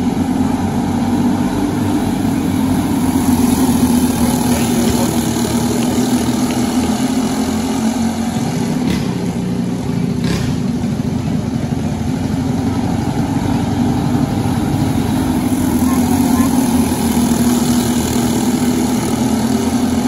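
Racing kart engines running at speed, a steady buzzing drone that swells louder a few seconds in and again near the end as karts pass.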